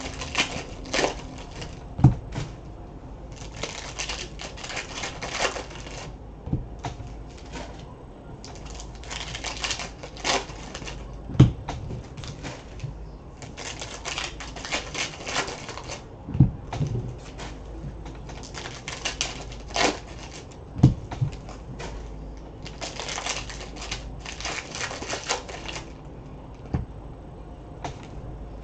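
Foil wrappers of Panini Prizm basketball card packs being torn open and crinkled, in about six spells of crackling a second or two long, with cards handled between them. A few sharp knocks come now and then as packs or card stacks hit the table.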